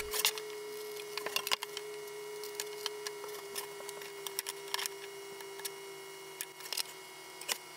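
Scattered light clicks and taps of hand tools and a wooden board being handled on a wooden workbench, with a small square and pencil set against the board to mark out tenons. A faint steady hum runs underneath.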